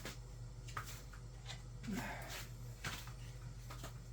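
Faint handling noises: a few light clicks and rustles as objects are moved and set down, over a steady low hum, with a brief murmur about two seconds in.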